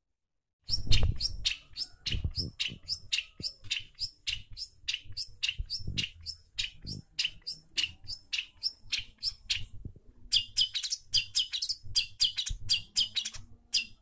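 Long-tailed shrike (cendet) calling in a rapid run of short, harsh, repeated notes, about three a second; after a brief pause about two-thirds of the way through, the calls come faster and denser.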